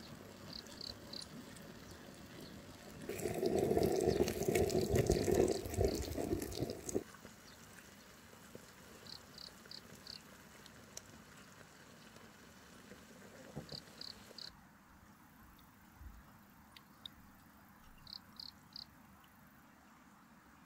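Chicken broth bubbling in a tiny earthenware pot, loudest for about four seconds starting some three seconds in. After that come quieter handling sounds with faint ticks, and near the end a light trickle as the broth is poured through a cloth-lined mesh strainer.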